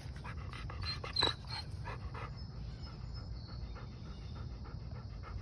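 A dog panting, with one short louder sound about a second in.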